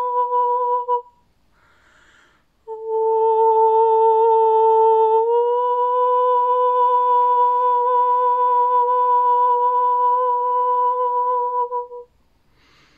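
A woman's voice toning in long, steady held notes without words, improvised as a sound meditation. One note ends about a second in, then comes a breath, then a long note that steps up slightly in pitch about halfway through and holds until near the end, followed by another breath.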